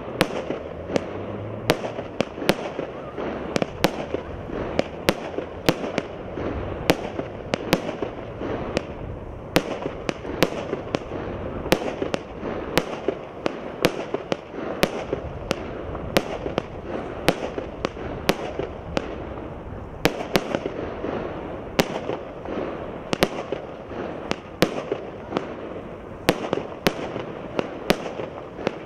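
A 36-shot, 1-inch fireworks cake firing in a steady string: sharp reports of shots and star bursts come about once or twice a second, with steady noise between them.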